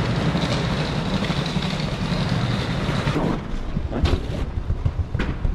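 Steady low mechanical rumble of the airport gate area and jet bridge. After about three seconds it drops away and a few separate thumps follow: a child's running footsteps on the jet bridge floor.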